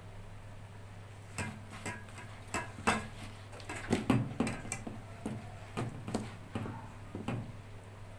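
A spoon knocking and clinking against cookware in irregular taps while dough is portioned into a pot of oil for frying zalabia, over a steady low hum.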